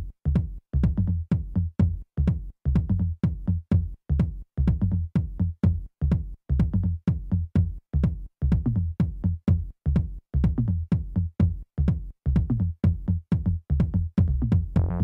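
Electronic background music with a heavy bass beat pulsing steadily about three times a second, each pulse cut off sharply.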